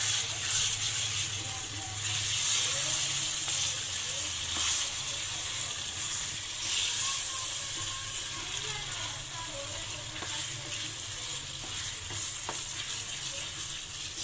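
Chicken korma masala with ground cashew and yogurt sizzling in oil in a pan, with a spoon stirring and scraping now and then. The steady sizzle of the gravy being fried (bhuna).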